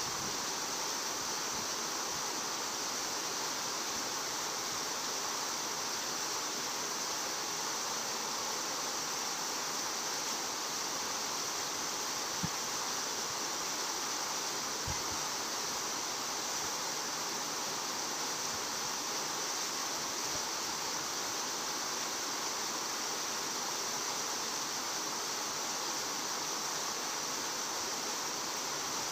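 Steady, even outdoor hiss, with two faint low knocks about halfway through.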